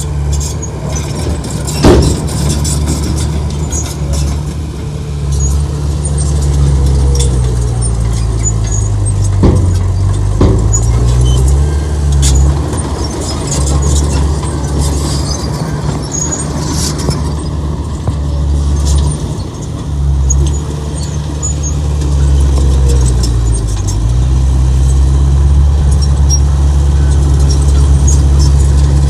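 Heavy diesel earthmoving machine engine running under load, its engine speed dipping and recovering twice. High metallic squeaks and clicks sound over it.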